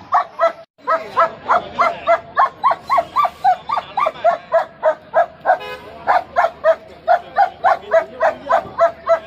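A dog barking rapidly and without pause, short high yapping barks at about three a second.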